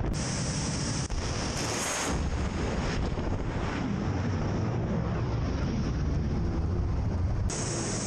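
Steady rushing roar of a ship-launched Vulkan anti-ship missile firing, with heavy rumble and wind buffeting the microphone on deck. It changes abruptly at edits about a second in, two seconds in and near the end.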